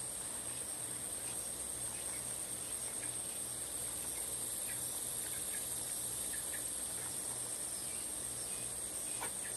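Night insects trilling steadily in one constant high-pitched note.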